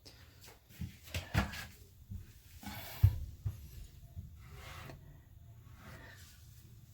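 Handling noises: irregular knocks, taps and rubbing or scraping, with the loudest knock about three seconds in.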